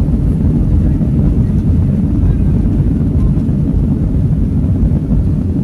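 Airplane cabin noise during takeoff: a steady, loud, low rumble from the engines.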